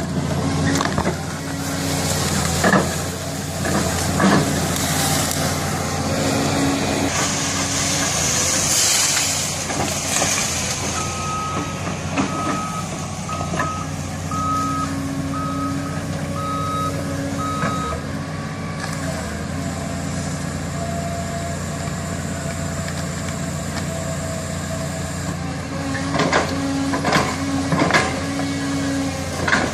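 Diesel engine of a heavy forestry machine running steadily, its reversing alarm beeping about once a second for several seconds midway. A hiss comes about eight to ten seconds in, and sharp knocks sound near the start and again near the end.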